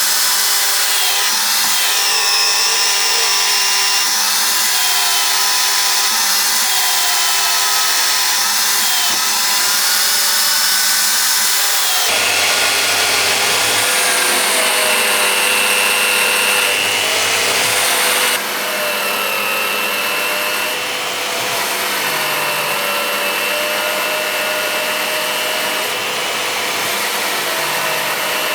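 An electric power tool running steadily against the work, giving a dense grinding noise with a motor whine that wavers in pitch. The sound changes abruptly about twelve seconds in and drops a little in level about six seconds later.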